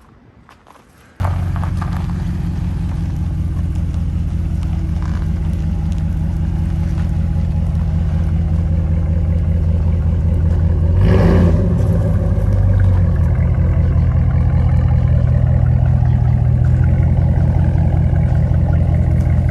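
An engine running steadily with a low, even hum. It starts abruptly about a second in, and a brief louder rush of noise comes about halfway.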